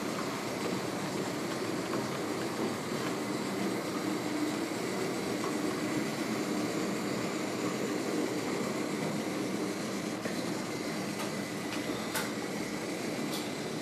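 HO scale Märklin model trains running along the layout's metal track, giving a steady rolling rumble of wheels and motors. A few light clicks come near the end.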